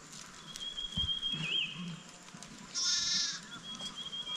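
A single short bleat from the shepherd's flock about three seconds in, quavering. A thin, high, steady whistle-like tone runs faintly before and after it.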